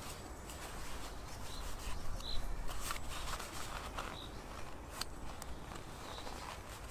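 Soft paper rustling and rubbing as hands twist and squeeze a toilet paper roll to work out its cardboard core, with a few small clicks.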